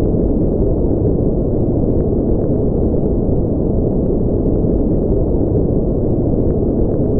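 Steady, unchanging noise from a sleep noise track. It is deep and muffled, with its weight in the low rush and no high hiss.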